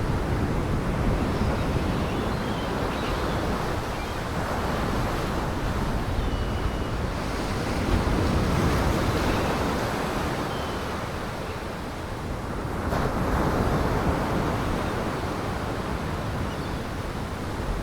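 Gale-force wind and heavy surf on the lakeshore: a steady roar of wind and breaking waves that swells twice, with wind buffeting the microphone.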